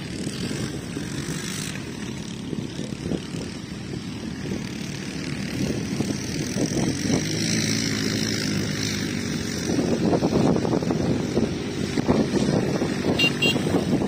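ATV (quad bike) engines running on sand dunes, the drone rising and falling in pitch with the throttle. From about ten seconds in it gets louder as one quad comes close and revs.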